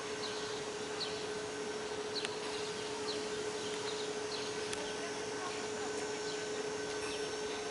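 Steady outdoor ambience: an even hiss with a constant low hum and many short, high chirps scattered throughout, like small birds calling.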